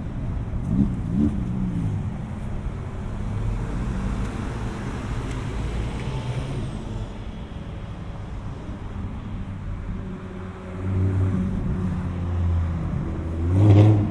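City street traffic: cars and other motor vehicles driving past with a continuous low engine and tyre rumble, which swells louder about eleven seconds in and peaks just before the end.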